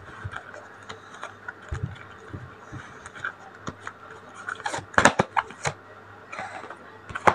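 Tarot cards being handled and laid down: scattered light clicks and taps, with a cluster of sharper card snaps about five seconds in and a brief sliding rustle just after.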